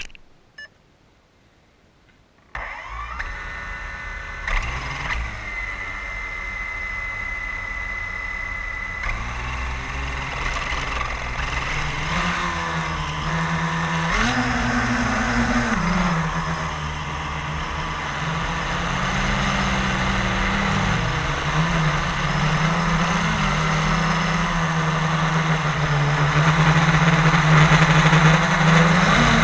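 Blade 350 QX quadcopter's four brushless motors and propellers, heard from the GoPro mounted on the craft. The motors start about two and a half seconds in with a steady whine, then rise and fall in pitch and grow louder as it lifts off and flies.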